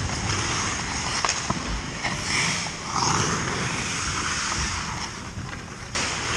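Ice hockey skates scraping and carving the ice close by, a steady hiss from the blades, with a few sharp clicks in the first couple of seconds and a sudden rise in level near the end.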